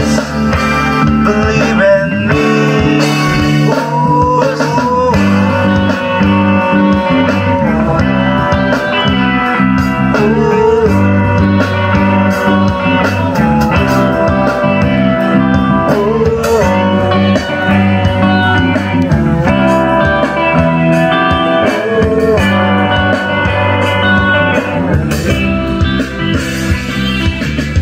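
Live band playing a song: electric guitars with a singer's voice over a steady low accompaniment.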